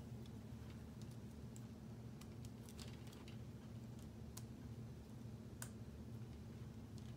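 Faint, scattered clicks and taps of plastic K'nex rods and connectors being handled and snapped together, over a steady low hum.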